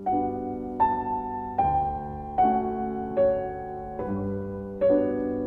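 Slow piano music: a new note or chord struck about every 0.8 seconds, each left to ring and fade.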